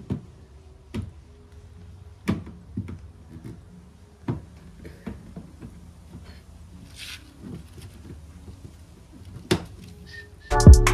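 Scattered light plastic knocks and clicks as a tow-bar hole cover panel is pushed and clicked into the underside of a VW Polo's rear bumper, with a brief rustle about seven seconds in. Loud electronic music starts just before the end.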